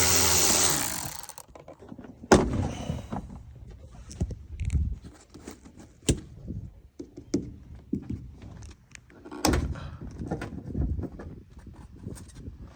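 A power tool's motor runs and stops about a second in, then plastic interior trim is pried, popped and handled inside a pickup cab: a string of knocks and clicks, with three sharper thunks.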